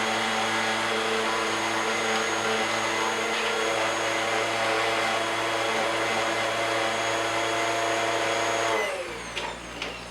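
Bissell upright vacuum cleaner running steadily with a pitched motor whine, its filters and canister freshly cleaned. About nine seconds in it is switched off and the motor winds down, its pitch falling, followed by a couple of faint clicks.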